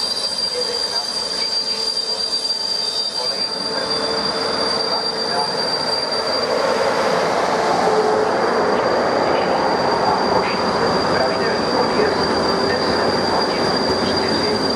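Locomotive-hauled passenger coaches of a departing Eurocity train rolling past close by. The rumble of wheels on rails builds from about four seconds in as the coaches draw alongside, over a steady high whine.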